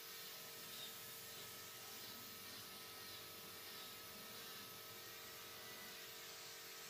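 Faint, steady hiss of a compressed-air paint spray gun spraying yellow enamel, with a steady hum underneath.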